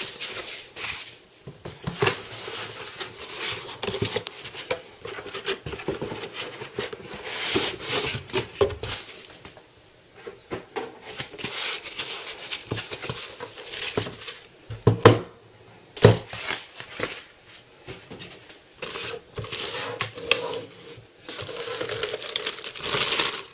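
Packaging being handled: foam packing sheets and plastic wrap rustling and crinkling irregularly, with a couple of sharp knocks past the middle.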